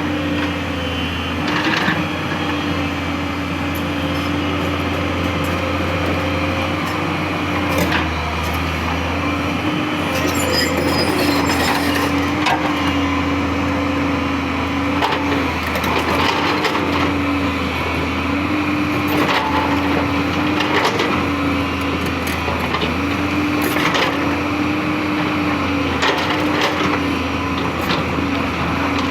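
JCB 3DX backhoe loader's diesel engine running under load, its pitch dipping and recovering several times, with repeated cracks, knocks and scrapes as the bucket breaks up the road surface.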